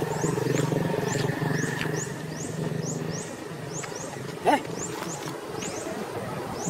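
Outdoor ambience: short high chirps repeating about twice a second over a steady low hum, with one brief loud call sliding down in pitch about four and a half seconds in.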